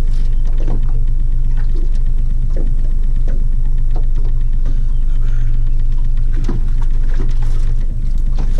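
A fishing boat's outboard motor running steadily at trolling speed, a constant low hum, with scattered small knocks and slaps over it.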